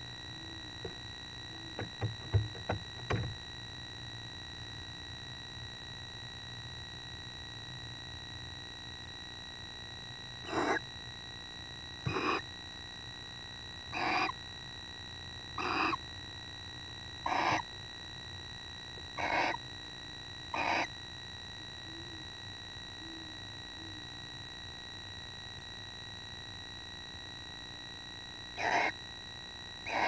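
Barn owl giving short screeches, seven in a row about every second and a half, then another near the end, over a steady high electronic whine. A few sharp knocks come in a cluster near the start, and a great horned owl hoots faintly in the background.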